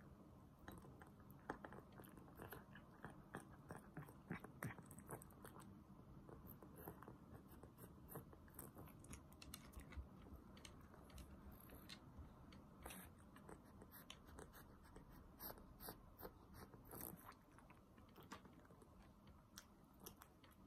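Cat eating from a ceramic bowl: faint, irregular clicks of chewing, fewer near the end.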